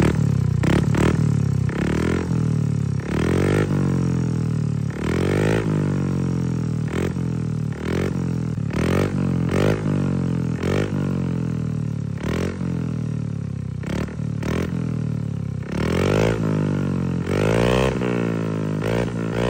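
Yamaha Mio i 125 scooter's single-cylinder four-stroke engine breathing through a KVIN aftermarket exhaust pipe, revved in repeated short throttle blips, each rising and falling in pitch, about one every second or two between spells of idle.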